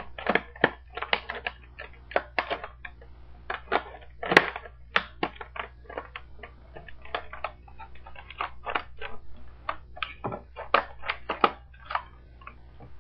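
Stiff plastic clamshell packaging crackling and snapping as it is pulled and pried open, in an irregular run of sharp crackles with the loudest snap about four seconds in.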